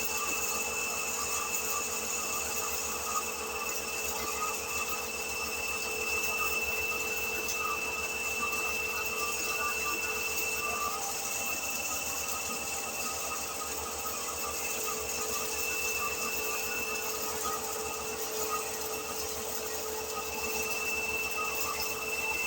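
Motor-driven disc mill (maize grinding mill) running steadily, with a constant high whine over the even noise of the machine.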